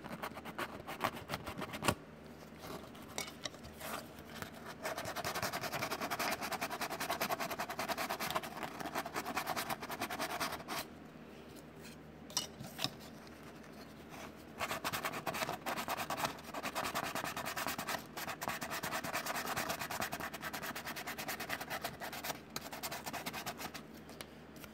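Sandpaper rubbing back and forth over the edge of a hard plastic model fender, in two long spells with a quieter pause of a few seconds in the middle. The surface is being roughed up so that glued styrene will stick to it.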